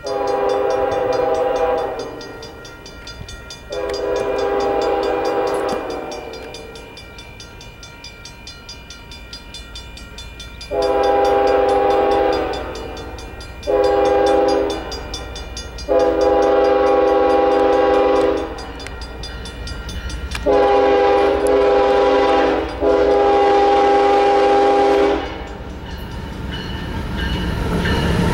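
Union Pacific diesel locomotive's multi-chime air horn sounding a grade-crossing warning: seven blasts, most of them long, with a longer pause after the first two. Over the last few seconds the low rumble of the approaching train grows louder.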